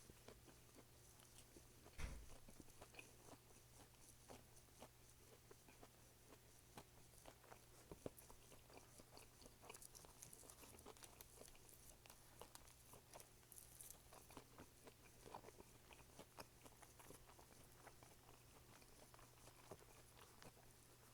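Faint close-up chewing and biting: soft crunches and wet mouth clicks scattered throughout, with a sharper knock about two seconds in.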